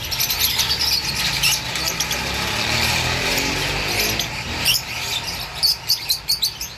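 Caged rosy-faced lovebirds giving short, sharp, high chirps, sparse at first and coming thick and fast over the last two seconds. Under them, for most of the first part, runs a steady rushing background noise with a low rumble.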